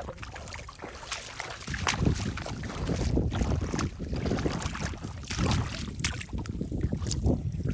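Wind rumbling on the microphone, with irregular noisy surges typical of water moving around a small boat or being waded through.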